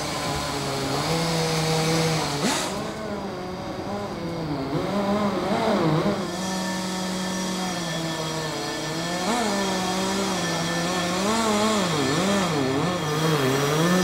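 Powered tube expander running in the boiler tubes of a locomotive boiler's front tube plate, rolling the tubes tight into the plate to seal them. Its motor whine holds a steady pitch at times and wavers up and down at others, more often in the second half.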